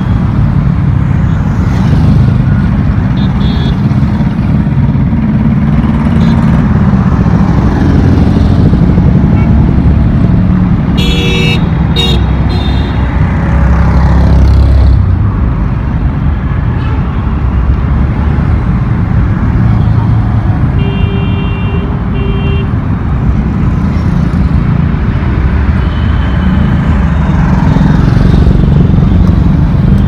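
Heavy road traffic of cars, motorcycles and trucks passing: a steady, loud rumble of engines and tyres. Short vehicle horn toots sound a few times, in a burst about eleven seconds in and as a double toot about twenty-one seconds in.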